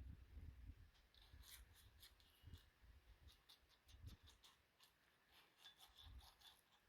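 Faint, irregular light rubbing and dabbing as egg wash is spread over a pie's top crust.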